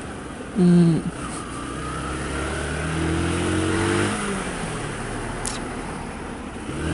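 A 125 cc motorcycle engine runs under wind and road noise, its pitch rising as it revs up about three seconds in. A brief loud two-note tone, like a horn blast, sounds about half a second in.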